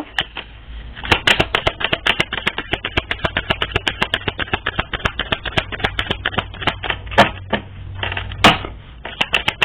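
Deck of tarot cards being shuffled by hand: a fast run of papery card clicks, several a second, with two sharper snaps near the end.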